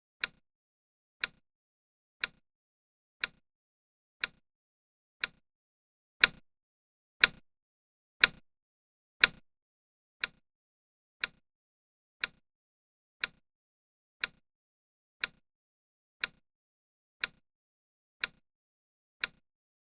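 Countdown timer's clock-tick sound: one sharp tick every second, steady throughout. Four ticks in a row, about six seconds in, are louder and ring a little longer.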